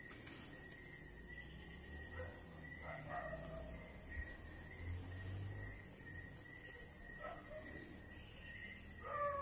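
Crickets chirping in a steady, fast pulsing trill, with a few faint short calls at a lower pitch now and then.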